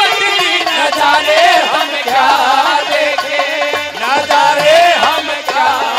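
Live Haryanvi ragni folk music accompanying a dance: a drum keeps a steady beat under a melody that slides up and down in pitch.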